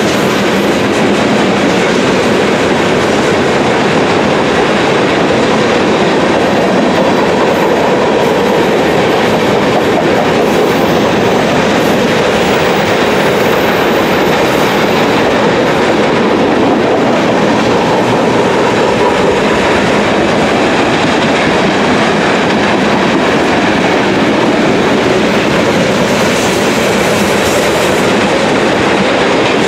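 Freight train of tank cars, covered hoppers and boxcars rolling steadily past close by: loud, continuous noise of steel wheels running on the rails.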